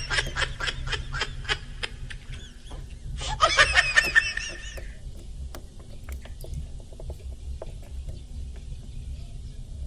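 A man chuckling in short bursts near the start and again at about three and a half to five seconds in. In between come scattered light clicks and taps as the battery tester's clamps are worked onto a car battery terminal.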